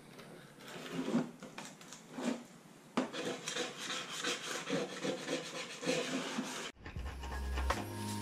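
Hand-held abrasive scrub pad rubbing and scraping softened sticker residue off a fibreglass surfboard deck, in quick back-and-forth strokes about two or three a second. The scrubbing cuts off suddenly near the end and music begins.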